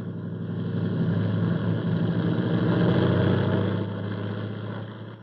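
Radio-drama sound effect of a helicopter's engine and rotor running with a fast, steady beat. It grows louder, then fades away near the end.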